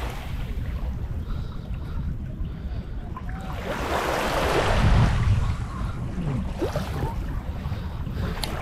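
Wind buffeting the microphone over sea water washing, swelling to a louder wash about four to five seconds in, with a click near the end.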